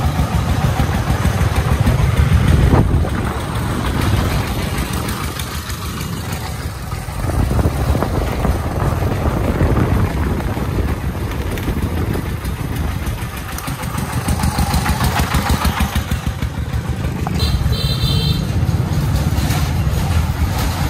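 Công nông farm truck's single-cylinder diesel engine chugging as it hauls a load of crushed stone, heard from close behind, mixed with the engine of the motorbike it is filmed from. A brief high-pitched beep near the end.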